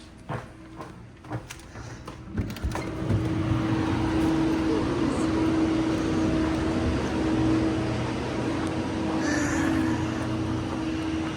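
A few clicks and knocks, then about three seconds in a car starts moving, its engine and road noise running steadily with a low rumble and a steady hum.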